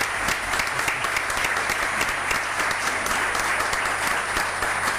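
Audience applauding steadily: many people clapping at once in a room.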